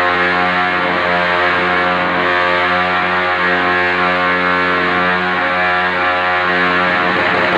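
Motorcycle engine held at high revs in an engine roar contest, a steady buzzing note with a few brief dips in the throttle.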